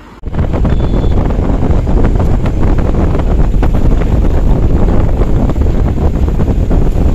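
Wind buffeting the microphone through the open window of a moving vehicle, a loud steady roar over the vehicle's road and engine noise. It cuts in abruptly a moment in.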